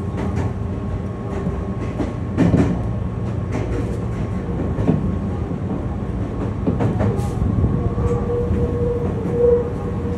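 Meitetsu commuter train running, heard from inside the passenger car: a steady rumble of wheels on rail, with irregular sharp clicks as the wheels pass over rail joints. A steady whine comes in about eight seconds in.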